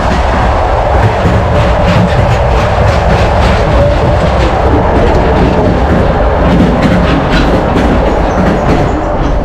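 Trans-Siberian passenger train running, heard from the open gangway between two carriages: a loud, steady rattle and rumble of wheels and couplings with frequent irregular metallic clanks.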